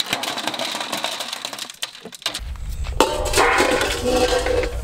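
Ice cubes and water poured into a stainless steel bowl, clattering and splashing. About three seconds in a second steel bowl is set down into the ice bowl with a knock and rings on.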